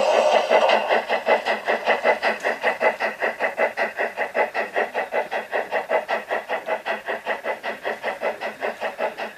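Garden-railway model of the Harz narrow-gauge steam locomotive 99 5906 running under way, its sound unit giving steady steam chuffs at about five a second. A steam hiss fades out in the first half second, and the chuffs grow slightly quieter as the locomotive moves off.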